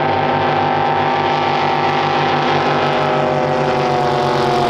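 Race boat engine running at a steady speed with a slightly lumpy, pulsing note; its pitch sags a little near the end.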